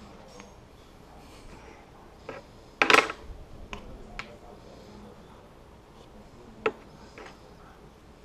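A few sharp clicks and knocks of small objects being handled on a tabletop, the loudest a short cluster about three seconds in and another single click near seven seconds.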